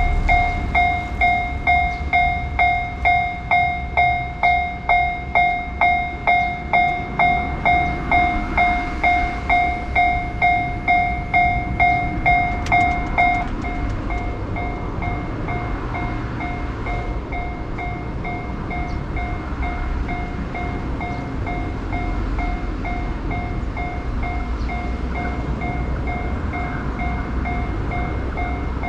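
Electronic railroad crossing alarm at a Japanese level crossing on the Nambu Line, sounding a ringing ding about twice a second. About 13 seconds in, the alarm drops to a much lower volume but keeps sounding. A train runs past with a steady low rumble and rail noise.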